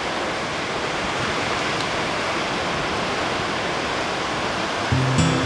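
Steady rush of ocean surf breaking on a beach. Music with a bass line comes in near the end.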